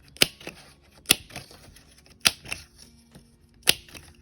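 Craft paper punch punching square shapes out of paper: four sharp snapping clicks, roughly one a second, each followed by one or two lighter clicks.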